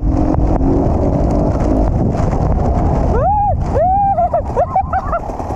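Dirt bike engine running with wind and rain rush on a helmet-mounted microphone while riding in heavy rain. From about three seconds in, several short pitched sounds rise and fall in quick succession.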